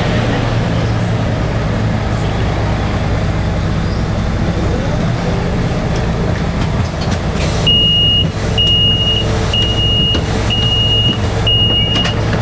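Engine of an articulated bus-style beach tram running with a steady low hum. From about halfway in, a high electronic beep sounds about once a second, each beep nearly a second long, five times.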